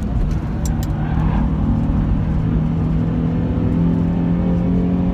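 Nissan 350Z's 3.5-litre V6 engine heard from inside the cabin, pulling with its pitch climbing steadily after a brief dip near the start, over road and tyre rumble.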